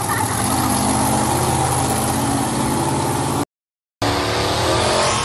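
Monster truck engine running loud, then revving up with rising pitch after a cut to silence for about half a second, three and a half seconds in.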